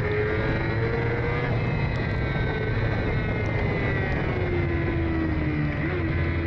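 Several racing sidecar engines running at once. Their notes sit at different pitches and sink slowly, with no big revs or shifts.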